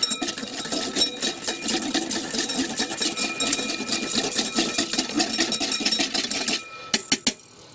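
Wire whisk beating formula in a bowl, its tines clicking rapidly and evenly against the sides. The whisking stops about six and a half seconds in, followed by a couple of separate taps.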